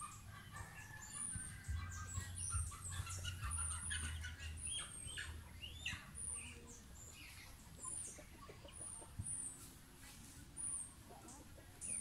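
Free-range chickens clucking, with a high, short chirp repeating about once a second over it.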